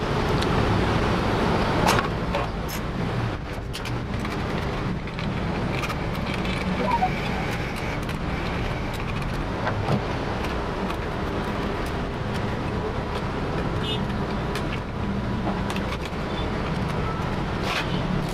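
Scattered clicks and light knocks of metal and plastic parts being handled while an HP all-in-one PC is taken apart and its motherboard lifted out. They sit over a steady background rumble.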